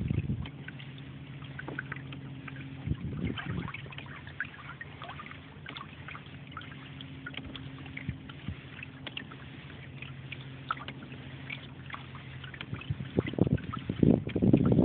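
Water trickling and lapping along the hull of a Hobie Adventure Island sailing kayak under way, in many small drips and splashes over a steady low hum, with a few louder rushes near the end.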